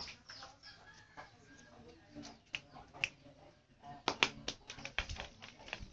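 Irregular sharp clicks and taps, scattered through, loudest in a quick cluster about four seconds in.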